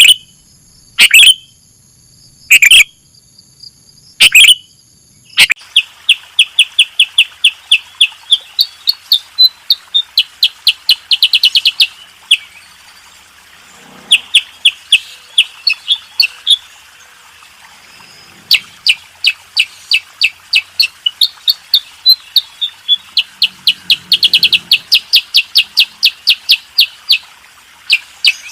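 Sooty-headed bulbuls (kutilang) calling: a few loud single chirps, then about five seconds in, long fast trains of high chirps, several a second, broken by short pauses.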